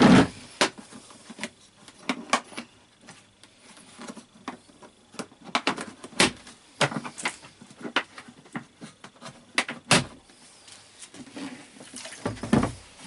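Irregular clicks and knocks with a few louder thumps, about 6, 10 and 12 seconds in: things being handled.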